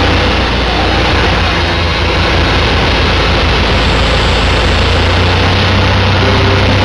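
Loud, steady aircraft engine noise at an air show.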